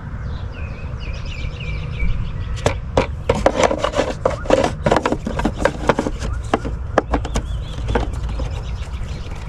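Engine air filter being slid and pushed into its plastic air box, with irregular scraping, rubbing and clicking that starts about two and a half seconds in.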